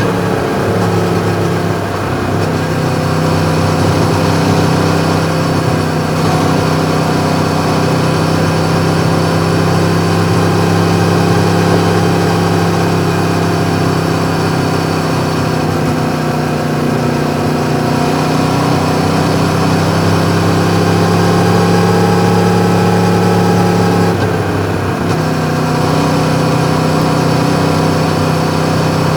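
Yamaha MT-10's crossplane inline-four with an Akrapovic exhaust running steadily. Its pitch slowly climbs, drops sharply about 24 seconds in, then steadies again.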